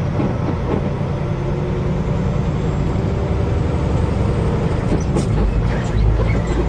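Semi truck's diesel engine and road noise heard inside the cab while driving, a steady low drone; the low rumble swells near the end.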